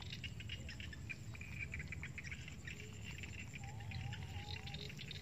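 Quiet rice-field ambience: a steady fine ticking chirr of insects, with faint wavering bird calls a little before four seconds in.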